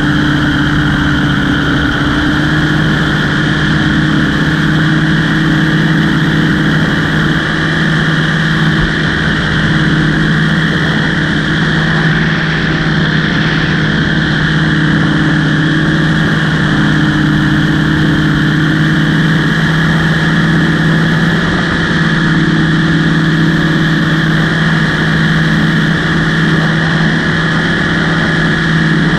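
Aircraft engine running steadily in flight, a loud constant drone that holds the same pitch throughout.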